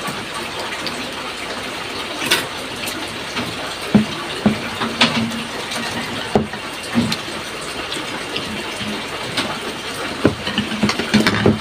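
Steady rush of heavy rain, with eating sounds over it: chewing and occasional sharp utensil clicks.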